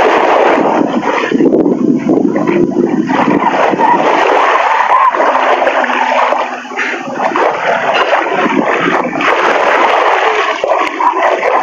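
Small sea waves breaking and washing up the sandy shore close by, with water splashing in the shallows; the rush swells and eases over the seconds.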